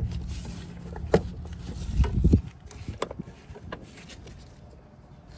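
A few separate sharp metal clicks and clinks of parts and tools being handled at the brake master cylinder, over a low rumble that cuts off about halfway.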